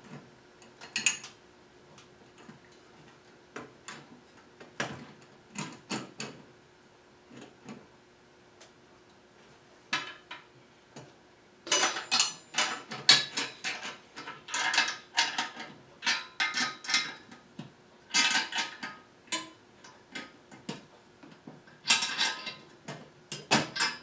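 Metal clicks and clanks from the aluminium frame and hardware of a Holzfforma Alaskan chainsaw mill as it is adjusted and its bolts are worked by hand. There are a few separate clicks in the first half, then quick runs of clicking from about halfway through.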